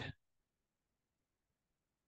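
Near silence: the tail of a spoken word cuts off just after the start, and nothing follows.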